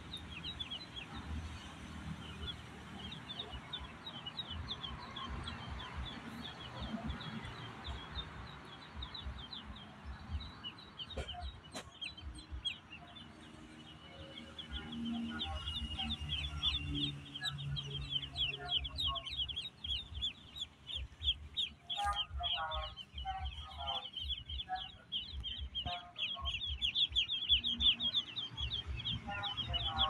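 Many ducklings peeping all together, a dense stream of high, quick calls that gets louder about halfway through. Lower, repeated calls from another bird join in from about fifteen seconds in.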